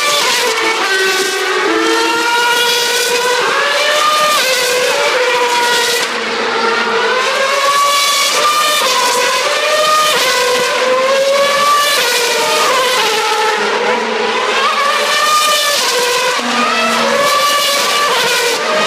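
Formula 1 car engines running at high revs, several at once, their pitch rising and falling as they accelerate and lift.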